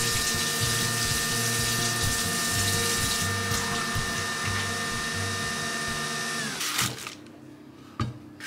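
Capsule coffee machine running as it finishes brewing, a steady whir that winds down in pitch and stops about six and a half seconds in.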